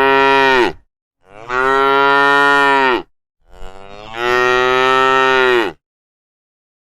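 Cow mooing: the end of one long moo, then two more long moos of about two seconds each, each holding a steady pitch that sags at the end.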